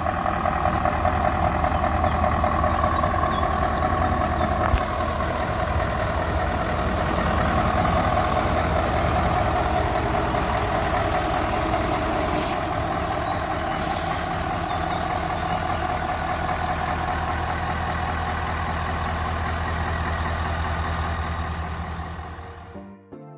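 Scania S520 truck's V8 diesel engine running steadily at low revs, with two short hisses about halfway through; the engine fades out near the end.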